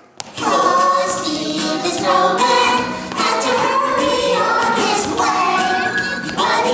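A song sung by several voices together, chorus-style, over backing music. It cuts in abruptly just after a brief click at the start.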